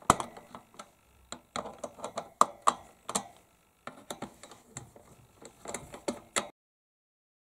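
Manual screwdriver clicking and scraping on the metal screws of a CPU cooler as they are tightened by hand: a run of irregular small clicks, a few a second, cutting off about six and a half seconds in.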